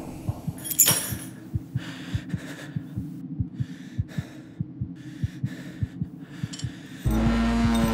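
Fast pounding heartbeat sound effect: low thumps several times a second. A sharp clatter about a second in, and a low droning tone that swells in near the end.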